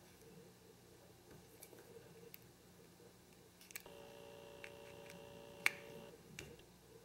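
A few faint, sharp small clicks, the loudest about five and a half seconds in. Under them runs a faint steady electrical hum that comes back about four seconds in and cuts off suddenly near the end.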